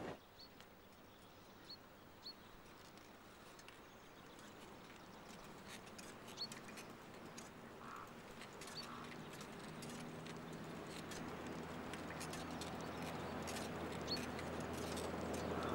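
Birds chirping now and then in open country while a distant truck engine approaches, its hum rising steadily in loudness through the second half.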